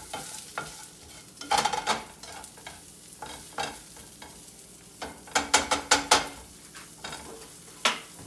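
Breakfast sausage sizzling in a frying pan while a utensil stirs and breaks it up, scraping and knocking against the pan in two short bursts, with a single knock near the end.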